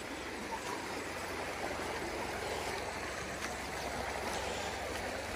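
Mountain stream running over rocks, a steady rushing of water.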